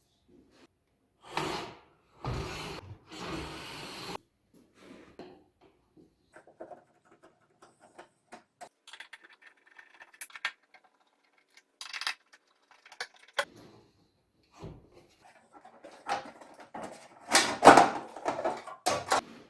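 Workshop handling noises: a few noisy scrapes in the first few seconds, then scattered sharp clicks and knocks, with the loudest knocks and scrapes near the end.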